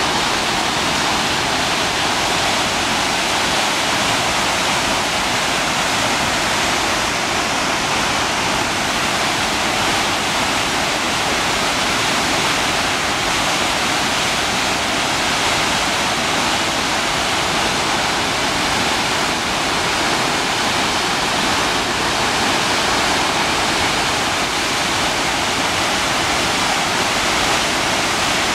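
Waterfall of the Bhagirathi River plunging through a narrow rock gorge into a churning pool: a steady, dense rush of falling white water that holds at the same loudness throughout.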